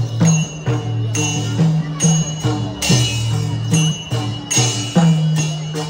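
Newari festival dance music: drum strokes about twice a second with ringing cymbals over a low tone that steps from note to note.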